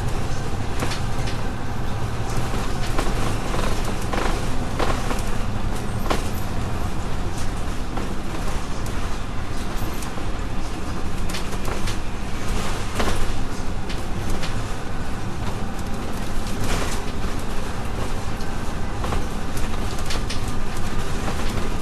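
Bus running along a road, heard from inside: a steady engine drone and road rumble, with frequent short rattles and clicks from the bodywork.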